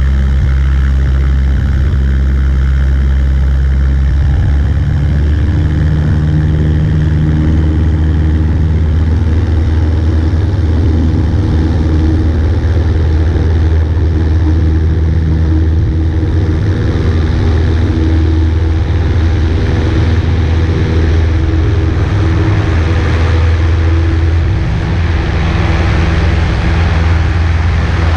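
Cessna 140A's piston engine and propeller running steadily, a loud constant drone with a rush of wind over it.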